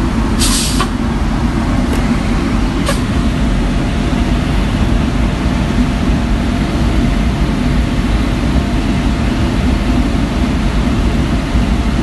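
Road sweeper truck's engine and vacuum system running steadily, a loud low drone. A short hiss comes about half a second in, and two sharp clicks follow about a second apart.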